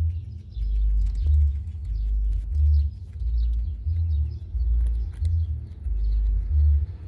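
A guinea pig gnawing a raw carrot, with a few sharp crunchy bites. Under it runs a deep bass pulse that swells regularly a little more than once a second.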